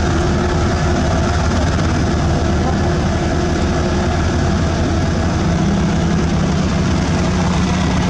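HAMM single-drum road roller's diesel engine running steadily at work on gravel road base, a loud, even low rumble. About five and a half seconds in, a second steady engine note joins it.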